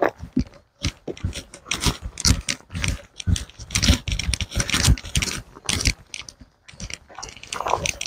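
Footsteps crunching on a gravel path strewn with dry leaves, a steady walking pace of about two steps a second.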